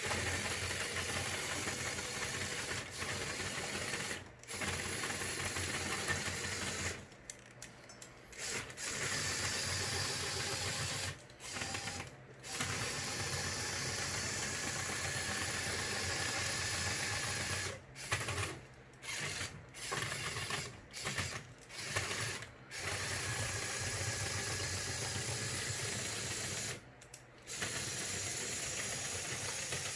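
Small electric motors and plastic gear trains of a motorized Lego Technic excavator model running with a whirring, clattering sound, stopping and starting many times, with a run of short bursts in the middle as individual functions are switched on and off.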